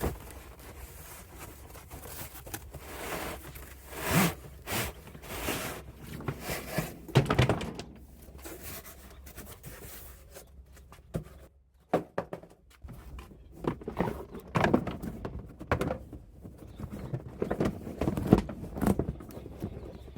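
A thick rubber cargo mat being pulled out of its packaging and handled: irregular rustling and scraping with scattered dull thumps.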